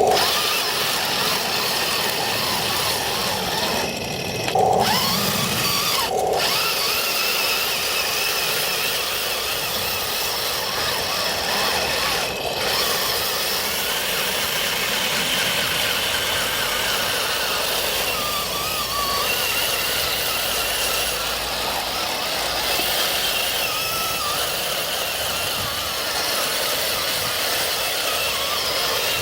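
Electric drive motors and gearboxes of an RC M26 tank model with metal tracks, whining steadily as it drives.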